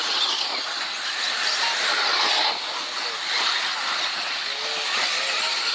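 Radio-controlled off-road buggies racing: a steady hiss of their motors and tyres that swells and fades as the cars move around the track.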